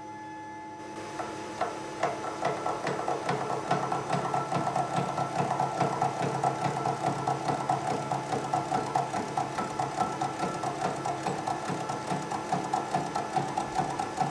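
Sheldon horizontal milling machine's arbor cutter milling a metal T-nut blank under power feed, the motor's hum overlaid by a regular beat of the cutter teeth biting, a few times a second, that sets in about a second in as the cutter engages. The cutter is dull, definitely not the sharpest, and doesn't make clean chips.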